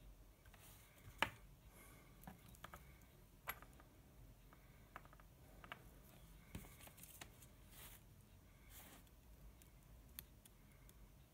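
Near-silent room with a scattering of small clicks and brief scratchy taps as multimeter test-probe tips are touched to bare wire ends and a small plastic connector is handled; the sharpest click comes about a second in.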